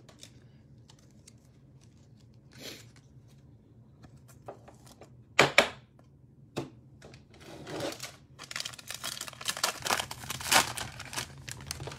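Cellophane wrapper of a trading-card pack crinkling and tearing as it is opened, a dense crackle that starts about two-thirds of the way in. Earlier there are a few faint clicks and two sharp knocks close together, from cards and packs being handled.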